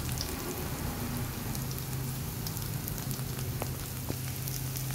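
Chopped garlic, kaffir lime leaves and chillies sizzling in hot oil in a wok, with scattered small crackles, over a low steady hum.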